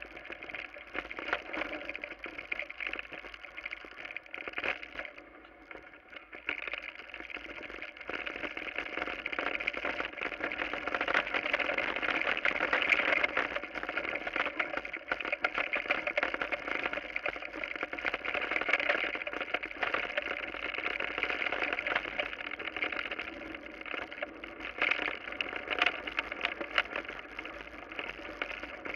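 Mountain bike riding downhill over bumpy grass and then gravel, heard from a camera on the rider: a constant clatter and rattle of the bike and its tyres over the ground, growing louder from about a third of the way in.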